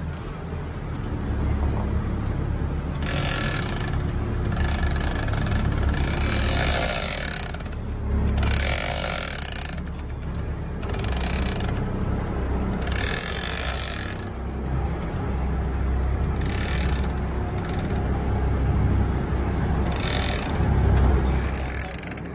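Gold lever-drag big-game fishing reel being cranked hard against a hooked bigeye tuna, its gears and line working in repeated spells of a second or so, over a steady low drone from the boat's engine.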